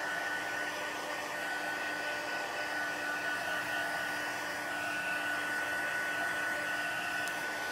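Craft heat tool blowing hot air steadily: an even rush of air with a thin, steady whine on top. It is drying a wet watercolor wash on paper.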